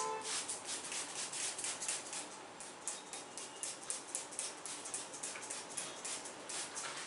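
Hands massaging a head, a quick run of short brushing and rubbing strokes, several a second, of fingers working over hair and skin.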